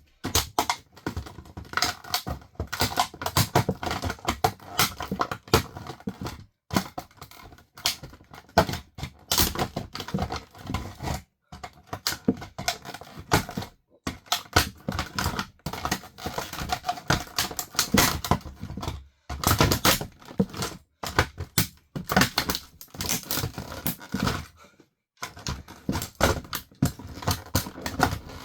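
Plastic body and parts of an RC car cracking, snapping and crunching under high heels: a rapid, irregular run of sharp clicks and cracks with a few brief breaks.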